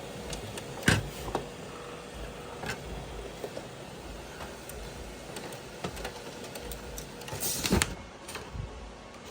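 HP Color LaserJet Pro MFP 4301fdw colour laser printer at work: a low steady running sound with scattered mechanical clicks, the loudest about a second in, and a brief rush of noise about seven and a half seconds in.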